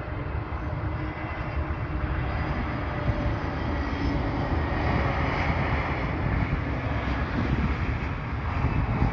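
Jet airliner's engines at takeoff power: a steady rushing noise that grows louder to a peak around the middle and then eases slightly.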